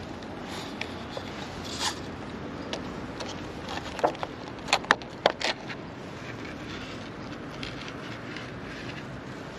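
Cloth bag of an insect beating net rustling and scraping as gloved hands work through it, with a quick cluster of sharp clicks and scrapes about four to five and a half seconds in.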